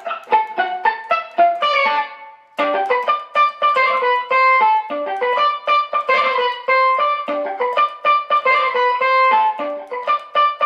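Electric guitar played in short, palm-muted staccato notes through a Digitech Whammy V set one octave up mixed with the dry signal, an XTS Precision overdrive and a Strymon Blue Sky plate reverb, giving a steel-drum-like ping. A quick run of notes, a brief break about two seconds in, then a longer melodic phrase.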